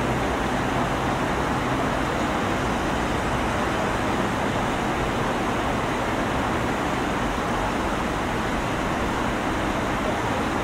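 Steady city road-traffic noise: cars passing on a busy street, an even hum with no single vehicle standing out.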